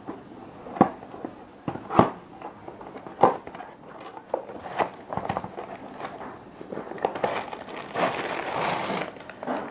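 An immersion rod's packaging being opened and handled: a series of sharp clicks and knocks, then a stretch of crinkling about seven seconds in.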